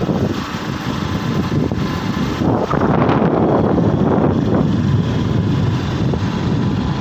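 A motorcycle on the move, with wind buffeting the microphone: an uneven low rumble that swells and dips throughout.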